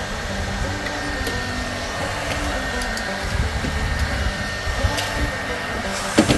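Electric heat gun running steadily, its fan blowing hot air onto a thick black power cable to soften its cold-stiffened insulation before stripping. A short knock sounds near the end.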